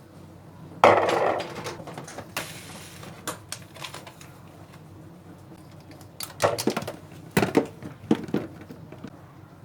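Objects being handled: a sharp knock about a second in with a brief rustle after it, scattered clicks, then a run of knocks and clatter near the end.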